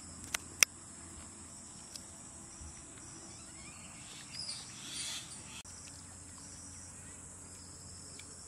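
Steady high-pitched chirring of insects such as crickets. Two sharp clicks come in the first second, and a brief scratchy sound comes about halfway through.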